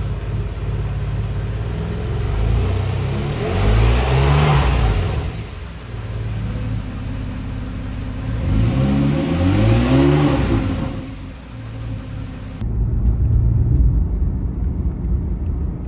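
2016 Porsche 911 Carrera S (991.1) naturally aspirated 3.8-litre flat-six running on fresh, still-cold oil. It climbs in revs twice, about four and ten seconds in, and drops back after each climb.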